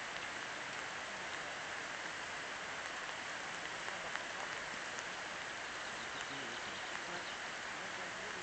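Steady outdoor background hiss with a few faint ticks scattered through it.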